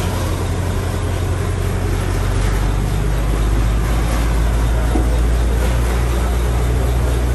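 An engine running steadily with a low rumble that grows louder about two and a half seconds in.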